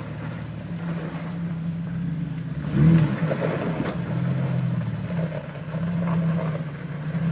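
Off-road 4x4's engine running under load, its pitch dropping and rising again, with a louder surge about three seconds in.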